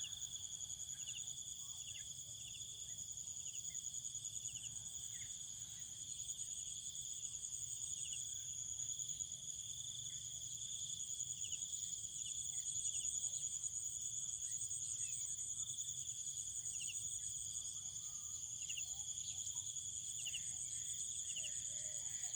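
Insect chorus trilling continuously at a high pitch, cricket-like, with scattered short chirps over it.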